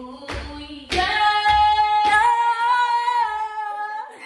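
Female voice singing over a song's beat, with bass thumps about every half second. The beat drops out about two seconds in and the voice holds one long note until just before the end.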